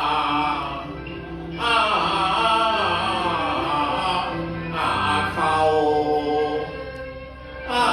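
Cantonese opera music: phrases of singing over instrumental accompaniment, each phrase starting strongly and fading, with new phrases about a second and a half in and again about five seconds in.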